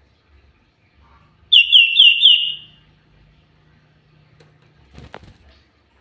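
Common iora singing a quick run of four loud, downslurred whistled notes, then a brief rustle near the end as the caged bird moves on its perch.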